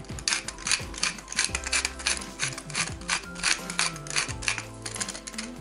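A hand-twisted cilio pepper mill grinding black peppercorns: a rapid, regular series of crunching, ratchet-like rasps, about four a second.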